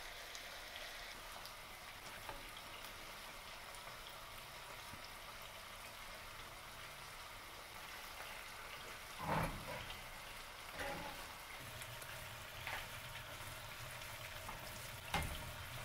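Rice, butter and cheddar sizzling faintly in a cast-iron skillet. From about nine seconds in, a spoon knocks and scrapes against the pan a few times as the rice is stirred.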